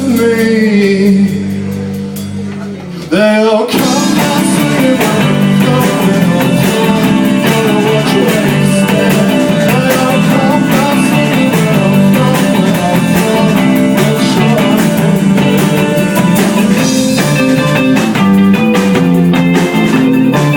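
Live indie rock band playing with vocals and guitar. A sung line over a held chord fades for about three seconds, then the full band comes back in loud and keeps playing.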